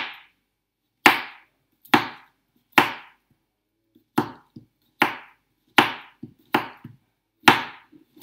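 Knife slicing a banana on a chopping board: a sharp knock each time the blade meets the board, about one a second, ten or so in all, with a few lighter taps in between.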